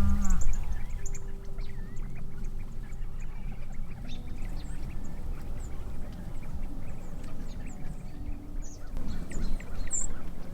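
Scattered bird chirps and calls over a steady low rumble, with the tail of a loud, low drawn-out animal call dying away in the first half second.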